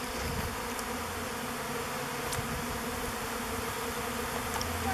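Swarm of honey bees buzzing in a steady hum as they fly around and move into a log hive.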